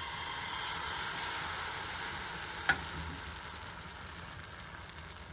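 Thin pancake batter sizzling as it hits a hot, oiled frying pan, loudest at first and slowly dying down as the pancake sets. A single sharp tap about two and a half seconds in.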